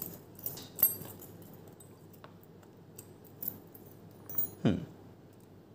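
Light clicks and clinks of a screwdriver and small screws against the plastic and metal parts of a foam-dart blaster being unscrewed by hand, in scattered taps, with a short sound falling in pitch near the end.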